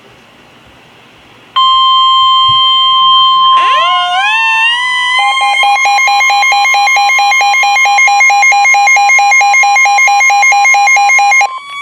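Weather radio's 1050 Hz warning alarm tone, a loud steady tone starting about a second and a half in over faint static hiss, signalling that a warning is about to be read. A few seconds in, other alarm tones sweep upward and then settle into a rapid repeating beep pattern over the steady tone, all cutting off near the end.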